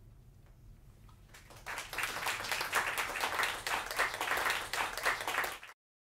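Audience applause after a live band's tune ends: after a short hush it starts about a second and a half in and cuts off abruptly near the end.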